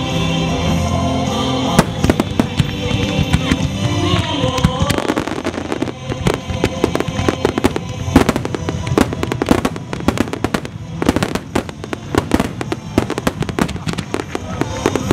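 A barrage of aerial fireworks shells bursting in quick succession, many sharp bangs and pops overlapping, with music playing beneath. The reports grow thickest from about a third of the way in onward.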